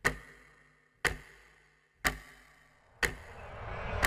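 A sharp tick once a second, each with a short low thump and a brief ring that dies away quickly, like a clock-tick sound effect. Near the end a rising swell of noise builds up.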